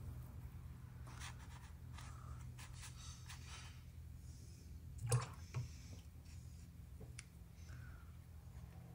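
Painting tools being handled: faint rustling and ticks, then two light knocks about five seconds in, half a second apart, over a low steady hum.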